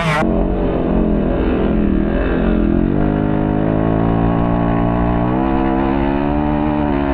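Small two-stroke petrol engine of a 1/5-scale gas RC buggy running at high revs under throttle. The revs dip about two seconds in, climb back within a second, then hold steady before easing off again at the very end.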